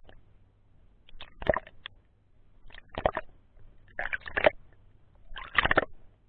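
Gurgling bubble bursts heard underwater, five in a row about every second and a half.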